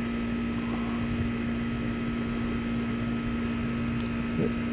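Steady background hum with a constant low tone, like a fan or air conditioner running, and a faint small click about four seconds in.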